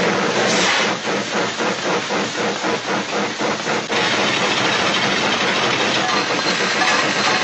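Steam locomotive chugging: rhythmic chuffs, about five a second, over steam hiss, settling into a steadier hiss about four seconds in.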